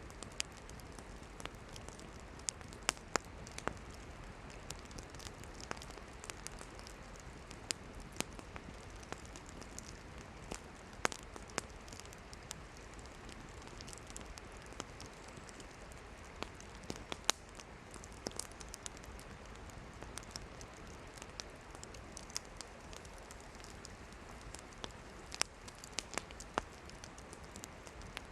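Burning firewood in a campfire, crackling with irregular sharp pops over a steady low hiss of the flames.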